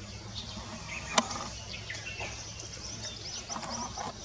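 Forest ambience of many small bird chirps and twitters over a steady low hum, with a single sharp click about a second in.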